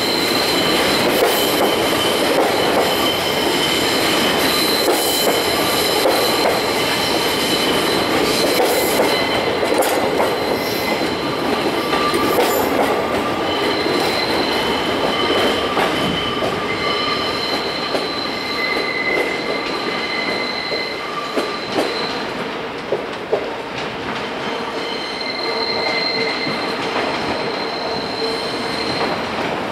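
Railway train running past with its wheels squealing on the rails: several high, steady squeal tones fade in and out over a continuous rolling rumble, with a few sharp knocks about two-thirds of the way through.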